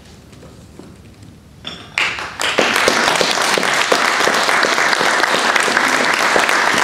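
Audience applauding, starting about two seconds in and then clapping steadily and loudly.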